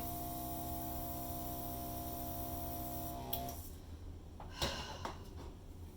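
Hairdryer running steadily: a motor whine over a rush of air, switched off about three and a half seconds in.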